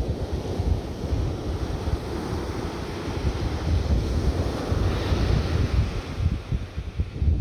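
Ocean surf washing on the beach, with wind buffeting the microphone; the hiss of the surf swells about five seconds in.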